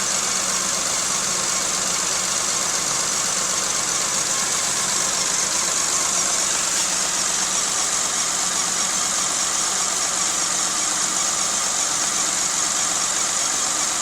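1995 Geo Metro's 1.0-litre three-cylinder engine idling steadily but roughly. The rough idle comes from cylinder two having no compression, caused by stuck lifters.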